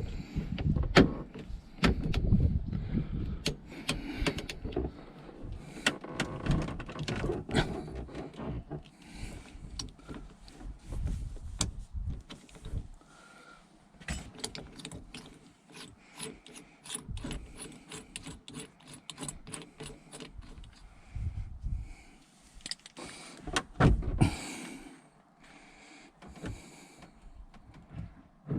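Ratchet with a 27 mm socket clicking and metal tools clunking as a steering wheel's centre nut is undone, with a run of quick, regular ratchet clicks in the middle and heavier knocks at the start and near the end.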